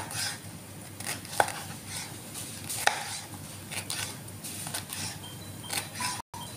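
Chef's knife slicing a green bell pepper into strips on a plastic cutting board: irregular knocks of the blade on the board, the two sharpest about one and a half and three seconds in. The sound cuts out for a moment near the end.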